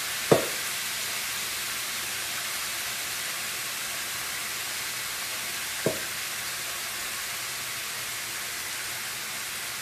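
Chicken and vegetable kebabs sizzling on a grill pan over a gas burner, a steady hiss, with two sharp knocks, one just after the start and a smaller one about six seconds in.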